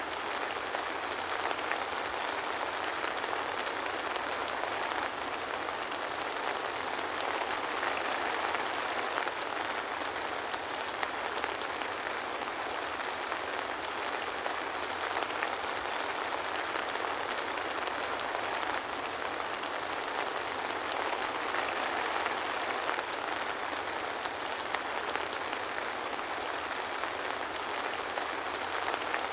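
Steady soft rain with no thunder, an even hiss of falling rain and faint scattered drop ticks.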